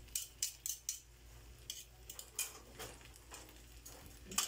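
A metal fork clicking against a non-stick frying pan as shrimp in sauce are stirred: several quick clicks in the first second, then a few scattered ticks, over faint sizzling.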